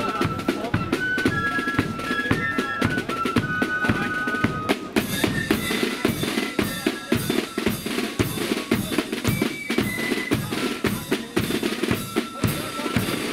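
A marching flute band playing a tune: flutes carry the melody over rapid side-drum rudiments and a steady bass drum beat. The band gets brighter and fuller about five seconds in.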